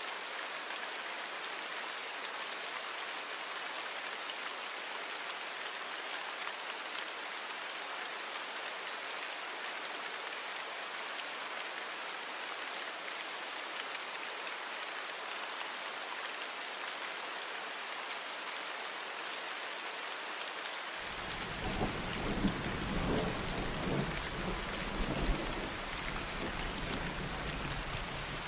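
Steady rain falling. About three quarters of the way through, a deep rumble of thunder sets in and swells in a few peaks before easing.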